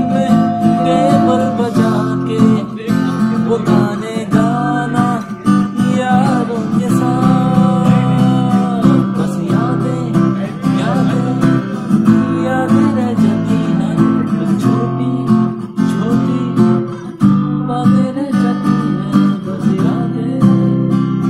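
Acoustic guitar strummed steadily in chords, with a man's voice singing along.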